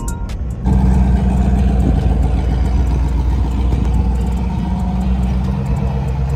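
Cammed 5.3-litre V8 of a 2000 Chevy Silverado, fitted with a TBSS intake manifold, running steadily as the truck rolls slowly through a turn, heard from outside the truck. It comes in about a second in, when background music cuts off.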